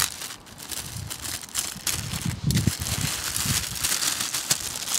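Clear plastic bag crinkling and rustling as it is handled, with lily bulbs shifting inside as they are tipped out; a dense, irregular crackle.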